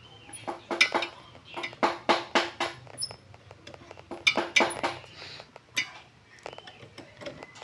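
Metallic clicking and clinking as a long metal tool turns and tightens the pad pin bolt in the rear disc brake caliper of a Honda Supra X 125. The clicks come in several short bursts with pauses between them.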